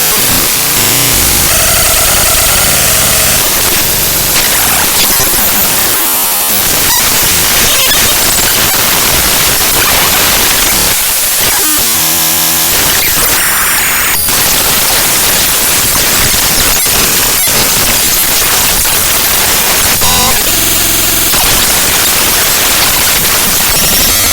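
Raw bytes of the ffmpeg.exe program file played directly as audio: loud, harsh static whose texture shifts every second or two, with short buzzing tones about halfway through and again near the end.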